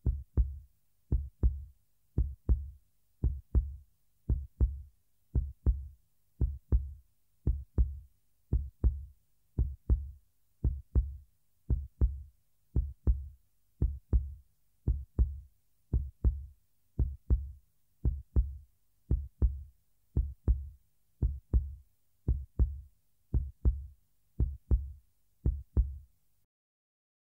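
Heartbeat sound effect: deep double thumps, lub-dub, repeating evenly about once a second, stopping suddenly about a second before the end.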